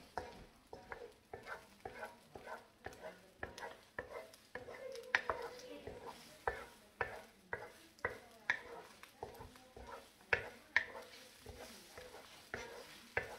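Spatula scraping and tapping against a wok about twice a second as eggs are slowly stirred while they fry, with a light sizzle underneath.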